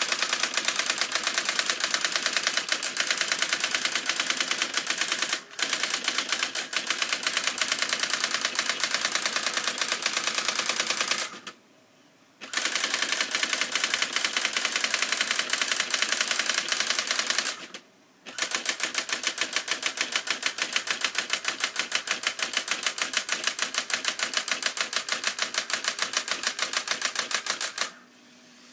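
Brother daisywheel printer printing text: its hammer strikes the spinning printwheel's spokes through the ribbon in a fast, even stream of clicks, with brief pauses about 11 and 18 seconds in. The printing stops near the end.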